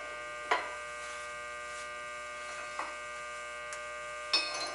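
Steel connecting rod clanking against the fixture on a horizontal boring mill table as it is set in place by hand: a sharp knock about half a second in, a faint one midway and another near the end, over a steady electrical hum.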